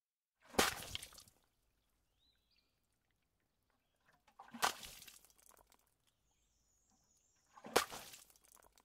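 Three sudden noisy crashes, about three and a half seconds apart, each starting sharply and dying away within about a second.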